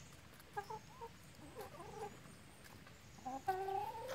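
Chickens clucking: a few short clucks in the first two seconds, then a longer, louder call near the end.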